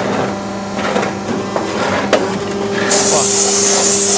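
Hydraulic brick press's pump motor humming, its tone shifting higher about two seconds in. About three seconds in, a sudden loud hiss of compressed air from a blow gun cleaning brick dust off the die, lasting about a second and a half.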